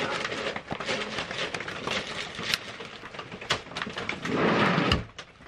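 Rustling and knocking of things being handled on a shelf as a towel is pulled out, with a louder burst of rustling cloth about four and a half seconds in.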